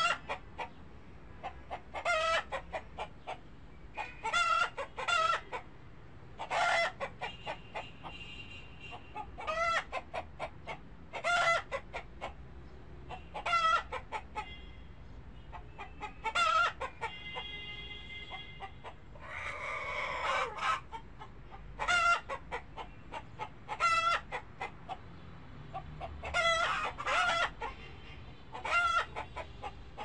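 Chickens clucking in short bursts of several quick clucks, about every two seconds. One longer, harsher call comes about two-thirds of the way through.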